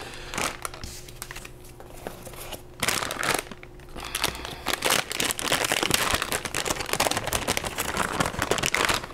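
Plastic anti-static bag crinkling as it is handled and unwrapped from around a graphics card. The crinkling is sparse at first and turns dense and louder from about three seconds in.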